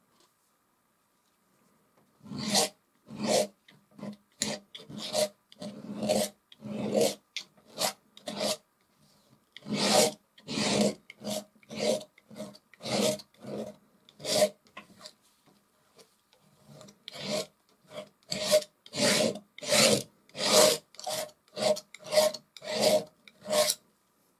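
Metal palette knife scraping oil paint across a canvas in repeated short strokes, about one to two a second, each a brief rasp. The strokes start about two seconds in and break off briefly past the middle.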